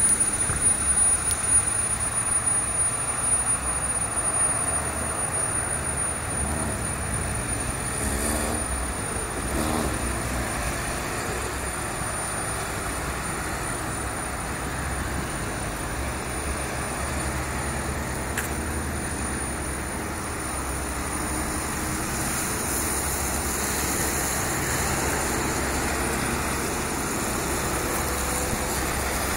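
Street traffic on wet roads: cars and a bus passing with steady engine rumble and tyre hiss on the wet surface, a little louder in the first couple of seconds beside the bus.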